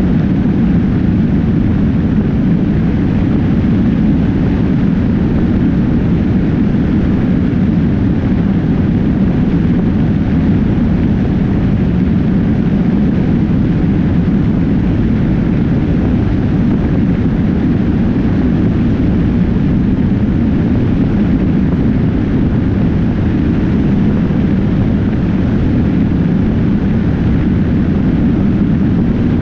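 Motorcycle travelling at highway speed: steady, loud wind rush and road noise on a camera mounted low on the bike.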